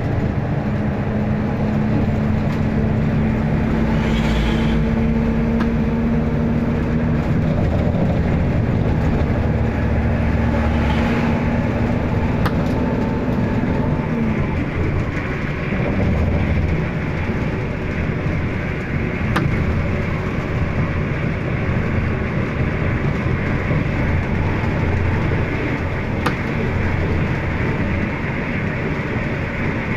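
Intercity bus driving along a highway, heard from inside the front of the cabin: a steady engine and road-noise drone. A held hum in it stops about halfway through.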